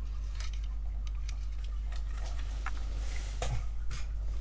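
Hard plastic toy figures clicking and clattering as they are handled and set down, with scattered light knocks and a couple of louder ones near the end, over a steady low hum.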